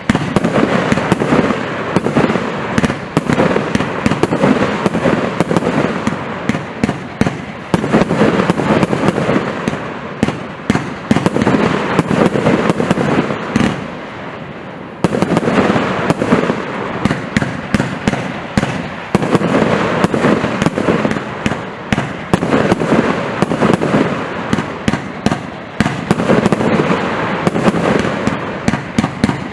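Compound firework cake firing a dense, rapid barrage of bangs, with a brief lull about halfway through before the shots resume.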